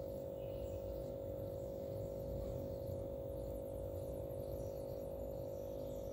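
A steady hum holding one constant pitch, over a low rumbling background noise, with no distinct events.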